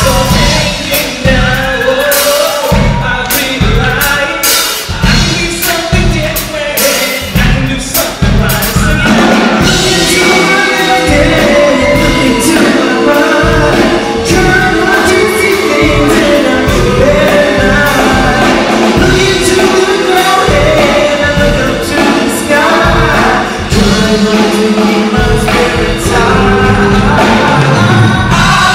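A live song performance: singing over music with a steady drum beat.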